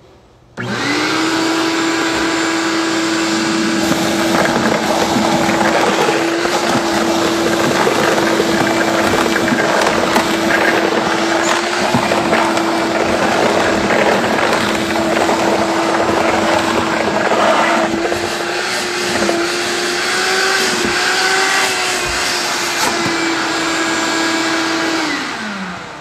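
RIDGID WD1685BR wet/dry shop vacuum switched on about half a second in and running steadily at full suction, with scattered clicks and rattles as sawdust, glass marbles and PVC pipe pieces are drawn up the hose. Near the end it is switched off and the motor winds down, its pitch falling.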